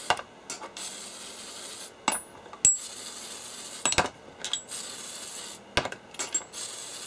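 WD-40 aerosol can spraying in several hissing bursts of about a second each, with steel sockets clinking and ringing against metal between the bursts.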